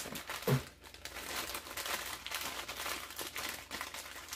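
Clear plastic zip-top bag crinkling and rustling as hands open it and dig out plastic nail tips. There is a brief low sound, the loudest moment, about half a second in.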